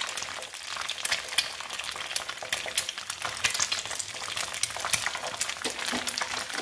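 Egg frying in oil in a frying pan, sizzling steadily with frequent sharp crackles and pops.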